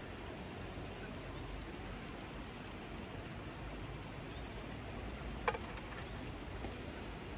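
Open wood campfire with steak cooking over it: a steady hiss, broken by one sharp pop about five and a half seconds in and a fainter one half a second later.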